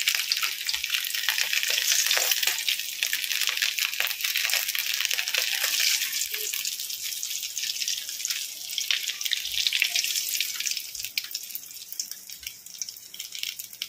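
Hot mustard oil sizzling and crackling in a kadai where eggs have been frying, the sizzle dying down over the last few seconds.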